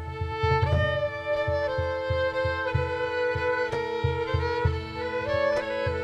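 Folk band playing an instrumental passage: a fiddle carries a stepping melody over a steady held drone, with a regular low beat about three times a second.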